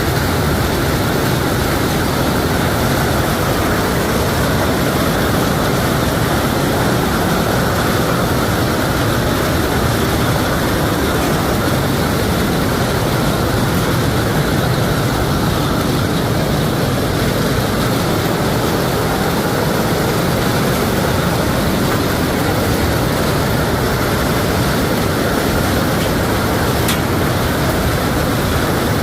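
Hail falling heavily in a storm: a loud, dense, steady patter of hailstones that never lets up.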